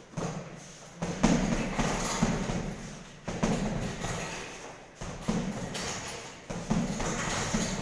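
Boxing gloves punching a hanging heavy bag: dull thuds, mostly in quick one-two pairs every second or two, each trailing off in the echo of a bare room.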